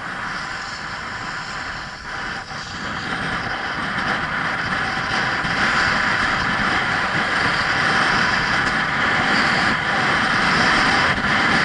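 Rushing wind on an action camera's microphone mixed with skis running over packed snow during a downhill run. It grows louder over the first six seconds or so as speed builds, then holds steady.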